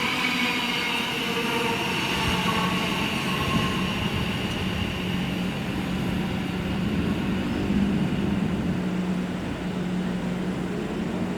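Electric train running through the station, its motors whining in several tones that fall in pitch over the first couple of seconds and then hold steady, over the rumble of wheels on the rails.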